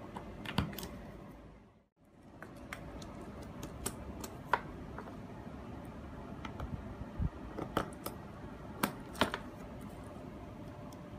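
Irregular small metallic clicks and taps as a spring bar tool works the spring bars of a steel watch bracelet and leather strap against the watch case, over a faint steady hum. The sound drops out briefly about two seconds in.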